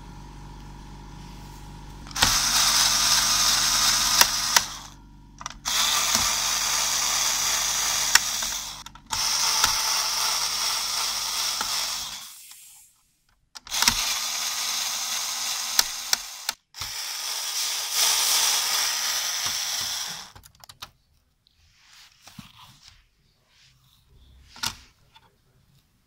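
Electric screwdriver running in five bursts of about three seconds each, backing out the screws that hold a CPU heatsink, then a few faint clicks and taps.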